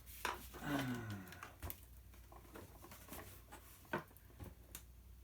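Scattered light clicks and knocks of plastic parts being handled while a small Samsung stick vacuum is pried apart, with a brief voice-like sound gliding down in pitch about a second in.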